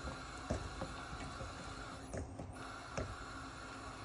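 Wooden spatula stirring thick dal in a metal pot, with a few soft knocks and scrapes against the pot over a steady background hiss.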